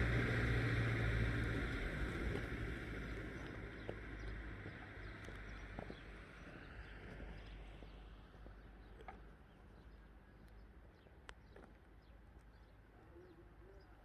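A vehicle's engine rumble, loudest at the start, fading away over the first several seconds. After that, quiet open-air ambience with a few faint, short bird calls.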